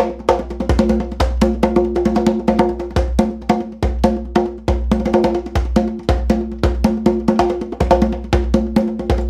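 Hand drum played with bare hands in a rapid, even stream of strokes, about ten a second, with deep bass tones landing at irregular points. It is a fast alpha-tempo rhythm in an odd meter.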